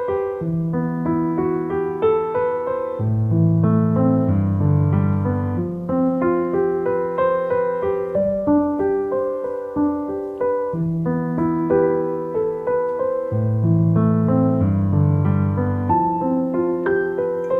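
Background piano music: a gentle repeating pattern of chords over a slow bass line.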